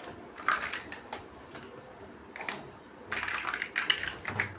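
Plastic building bricks clicking and clattering as they are handled and snapped together, with a few separate clicks and then a quick run of clicks about three seconds in.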